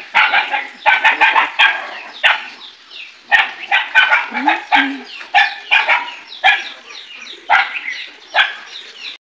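A dog barking over and over, in short loud barks about twice a second.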